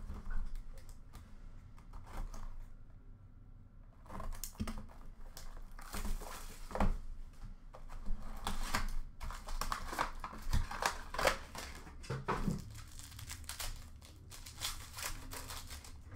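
Plastic and foil wrapping crinkling and tearing in irregular bursts as a hockey card box is unwrapped and a card pack is ripped open. It starts after about four quiet seconds.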